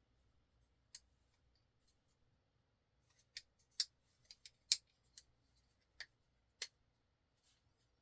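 Spyderco Yojimbo folding knife being worked open and shut to test it after reassembly: a run of about nine sharp metallic clicks, one about a second in and the rest between about three and seven seconds in.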